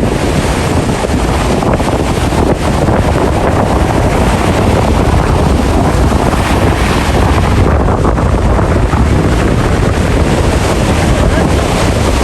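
Ocean waves with heavy wind buffeting the microphone: a loud, steady rushing noise, heaviest in the deep low end.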